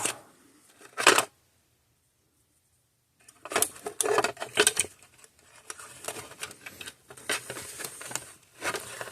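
Clicks and rattles of a capacitor being handled and test-fitted into the plastic housing of an electric fence charger. There is one loud clatter about a second in, then a gap of dead silence for about two seconds, then more scattered clicks and scrapes.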